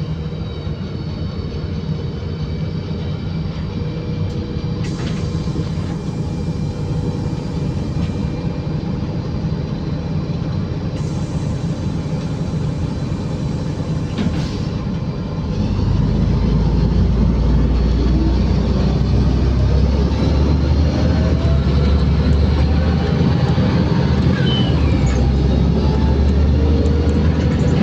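Inside a LiAZ 5292.65-03 city bus under way: steady engine and road rumble that grows louder and deeper about halfway through, with a faint whine rising in pitch near the end.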